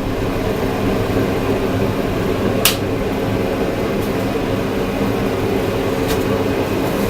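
Steady mechanical hum with a low drone of fixed tones, and one sharp click about two and a half seconds in.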